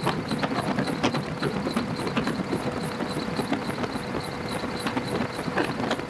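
Helicopter rotor and engine noise heard from the aircraft, a steady rushing with a faint steady whine, rapid even pulsing and frequent short thuds.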